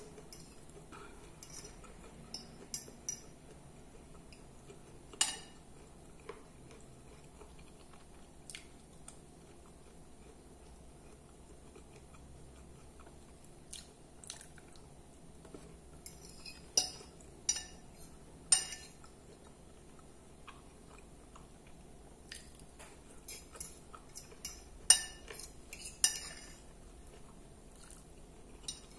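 Metal fork clinking and scraping against a glass plate as food is scooped up: scattered sharp clicks, bunched into two runs in the second half, with soft chewing between.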